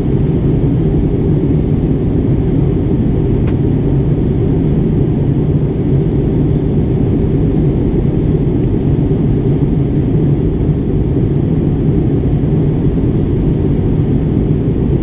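Steady low rumble of engine and airflow noise inside the cabin of an Airbus A320-family jet airliner during its descent to land.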